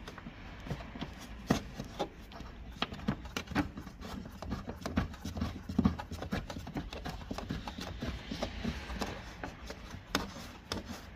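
Fingers turning a tail light fixing screw and rubbing on the plastic body trim, giving irregular small clicks, taps and scrapes.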